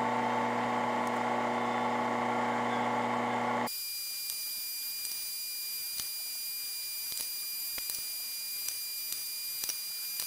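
Drill press motor running steadily while a thin bit drills small holes in a strip of wood. A little over a third of the way in, the steady hum cuts off abruptly and gives way to a quieter, higher-pitched whine with faint scattered ticks.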